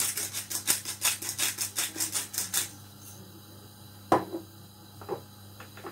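Ground pepper being shaken from a pepper pot over tuna steaks, fast even shakes about six a second that stop a little under halfway through. A sharp knock follows a little after the middle as the pot is set down, then two fainter clicks.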